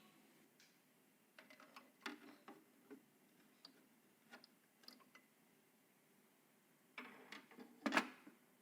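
Scattered light clicks and taps of computer parts being handled and fitted together, with a louder run of clicks near the end.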